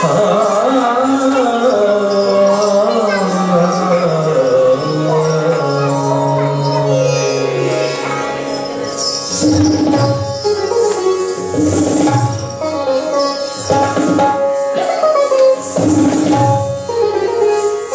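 Indian classical music for a Kathak dance: a slow melodic line that falls in pitch over the first half, then tabla strokes join about nine seconds in.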